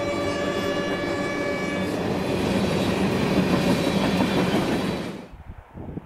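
Canadian Pacific freight locomotive's air horn sounding a fouled chord, holding on and then stopping about two seconds in. Under it, freight car wheels rumble and clickety-clack past on the rails. Everything cuts off suddenly about five seconds in, leaving faint wind.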